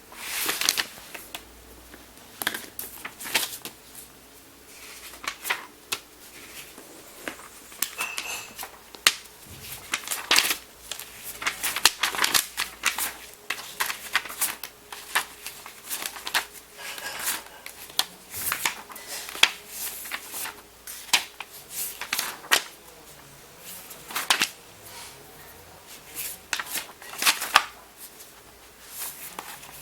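Notebook paper rustling and being handled, in irregular bursts with sharp clicks and taps.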